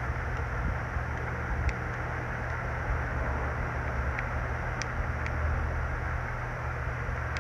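Steady background hiss with a low hum throughout. A few faint, light clicks sound as hard cured resin pendants are picked up and handled.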